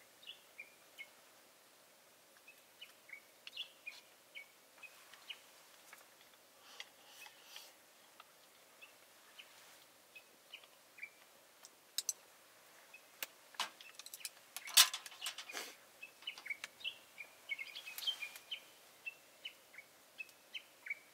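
Small birds chirping, with short high calls repeating throughout. A run of sharp clicks or knocks comes a little past the middle, the loudest of them louder than the birds.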